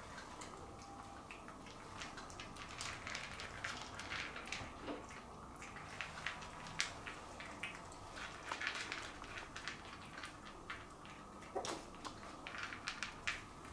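Yorkshire terrier puppy eating dry kibble from a bowl: irregular small crunches and clicks of kibble being chewed and nudged against the bowl.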